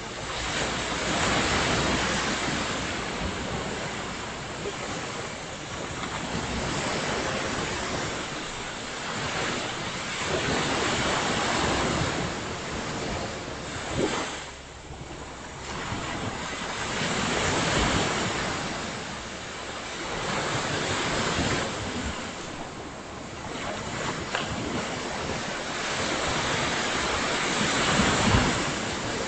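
Ocean surf breaking on a beach, the wash swelling and fading every few seconds, with wind gusting on the microphone.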